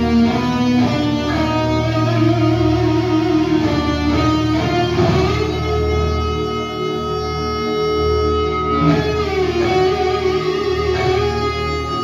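Live rock band playing, led by electric guitars, with long held notes that slide slowly in pitch over the bass and drums.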